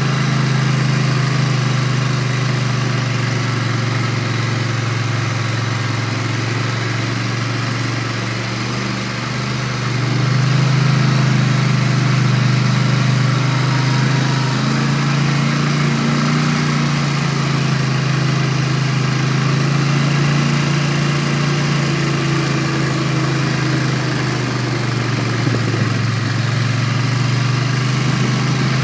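ATV engine running steadily at low speed, its pitch and level dropping briefly as the throttle eases off about a third of the way in and again near the end, then picking back up.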